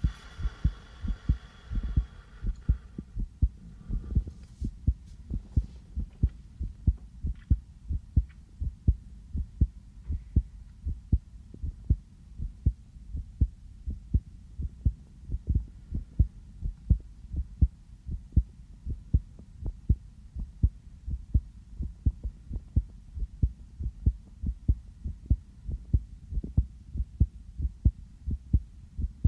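A real human heartbeat picked up close on the chest: low thumps in a steady, even rhythm. A faint higher rustle and a couple of small ticks sit over it in the first few seconds.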